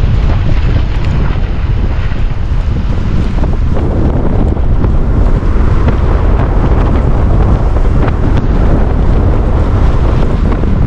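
Wind buffeting the microphone of a camera moving along a wet road: a steady, loud low rumble under a rushing hiss, with no break.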